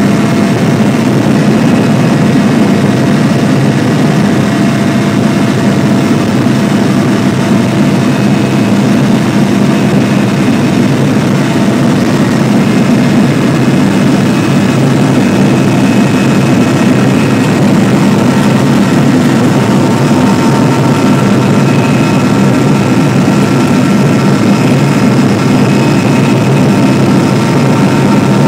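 Mi-8 helicopter's twin turboshaft engines and main rotor heard from inside the cabin during takeoff and climb: a loud, steady drone with faint whining tones above it. A couple of higher whining tones come in about two-thirds of the way through.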